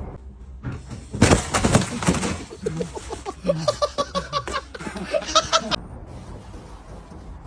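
Human laughter in quick repeated bursts, starting about a second in and dying away near the end.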